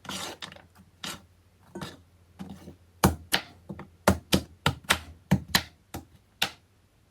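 Kitchen knife chopping carrots on a chopping board: a series of sharp, irregular knocks, a few at first, then quickening to about three a second from around three seconds in.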